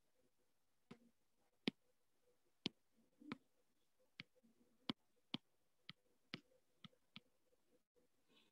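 About a dozen faint, sharp clicks at uneven intervals: a stylus tapping on a tablet's glass screen. A faint steady hum lies under them.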